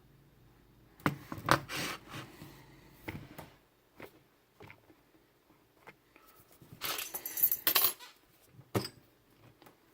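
Small metal clicks and clinks from handling a padlock and its removed lock core, with a cluster of ringing metallic clinks about seven seconds in.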